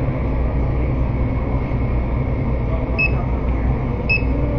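Checkout barcode scanner beeping twice as items are scanned, short high beeps about three and four seconds in, over a steady low hum of the store.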